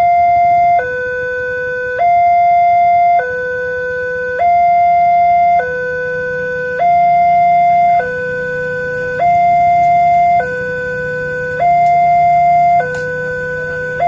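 Electronic two-tone siren of a railway level crossing sounding its high–low warning, each tone held a little over a second and alternating steadily, the signal that a train is approaching.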